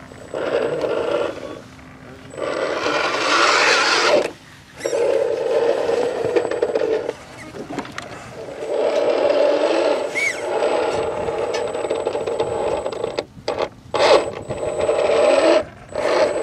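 Electric motor and gear drive of an Axial SCX10 II RC crawler whining in bursts of a few seconds as the throttle is worked, dropping away briefly between pushes, with tyres scraping and crunching over dry dirt.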